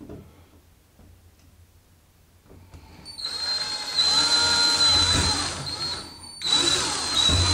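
Cordless drill running with a number 22 bit, drilling the knob hole in a bifold closet door. It starts about three seconds in with a steady high whine, stops briefly just after six seconds, and starts again.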